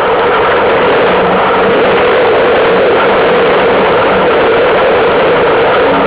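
Strong wind buffeting the microphone of a camera aboard a sailing dinghy: a loud, steady rush with no let-up.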